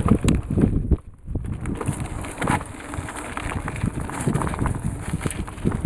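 Mountain bike rolling fast down a bumpy dirt trail: irregular rattling and knocking from the bike and tyres jolting over the ground, with a brief lull about a second in.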